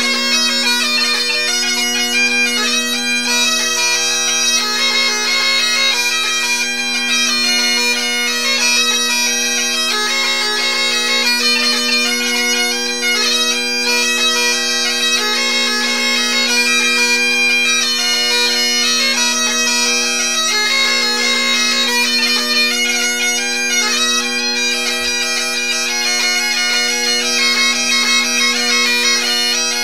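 Two Great Highland bagpipes playing a hornpipe together, the chanter melody over the steady hum of the drones.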